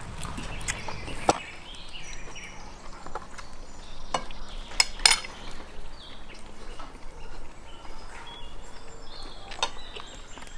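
Metal forks clinking and scraping against plates and a metal tray during a meal, a few sharp clinks, the loudest about five seconds in.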